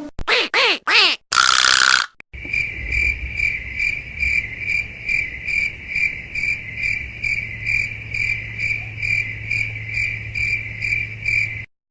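Cricket chirping sound effect: an even, high chirp repeating about two and a half times a second for roughly nine seconds, then cutting off suddenly. It is preceded by three quick sliding cartoon tones and a short hiss.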